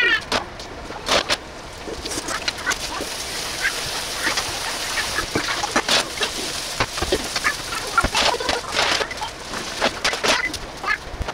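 Noodles sizzling as they are stir-fried in a large frying pan, with long chopsticks clacking and scraping against the pan as they lift and turn them. Near the end the pan is shaken and tossed, adding knocks against the stove.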